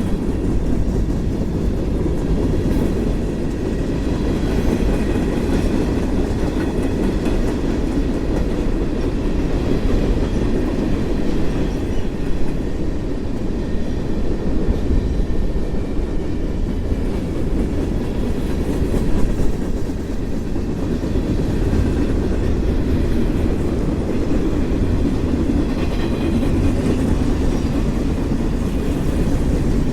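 Freight cars of a manifest train rolling steadily past, a continuous rumble of steel wheels on rail with clickety-clack from the rail joints.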